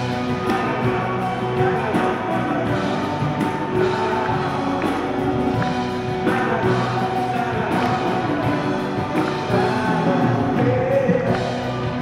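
Live band performing a song, with acoustic guitar and flute, and voices singing.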